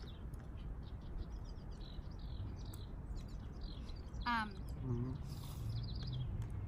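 Small birds chirping repeatedly in the background, with one louder call that falls steeply in pitch a little past four seconds in. A brief low voiced hum from a person follows near the five-second mark.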